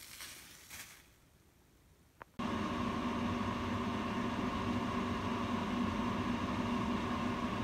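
A steady mechanical hum from a fan or motor, with a constant drone and no change in pitch, starting abruptly about two and a half seconds in after a nearly quiet opening.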